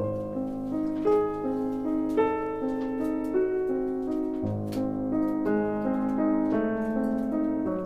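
Background piano music: a slow melody of single struck notes, each ringing on until the next.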